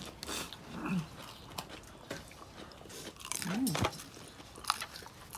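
Crunchy bites and chewing of a fried shell-on salt-and-pepper shrimp, with scattered sharp crackles. Two short hummed 'mm' sounds come about a second in and again around three and a half seconds in; the second is the loudest part.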